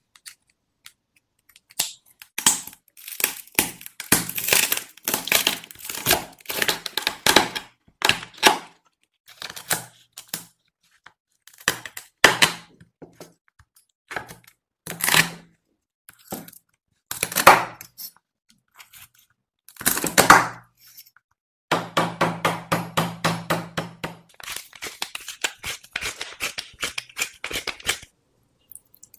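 Kitchen shears snipping and crunching through a Boston lobster's shell, then a knife chopping the tail into pieces on a wooden board, heard as sharp cracks and crunches in clusters with short pauses between. Near the end a pepper mill grinds in a quick run of clicks.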